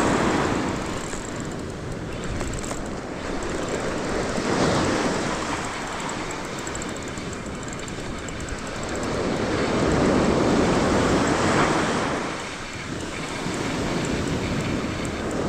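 Surf washing onto the beach, swelling and fading in slow surges every few seconds, with wind on the microphone.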